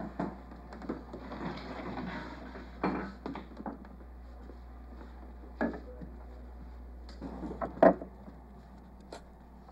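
Scattered knocks and clunks, the loudest about eight seconds in, over a steady low hum.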